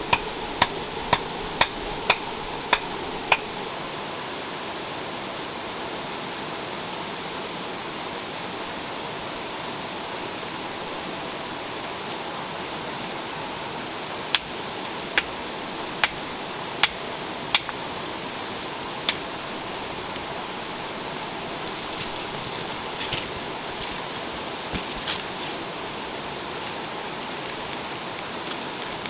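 A river running steadily, with runs of sharp knocks or taps over it: about eight quick ones near the start, then about six more spaced roughly a second apart about halfway through, and a few scattered ones near the end.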